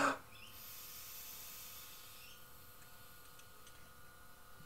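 Faint hiss of low-pressure air blown through a Hitachi SU carburettor float bowl lid, escaping past the float needle valve. The hiss fades out about halfway through as the float is brought up and closes the valve off.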